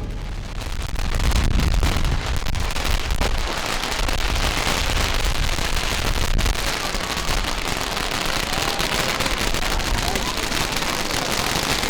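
Fireworks and firecrackers crackling densely and continuously, a steady rapid crackle with no breaks.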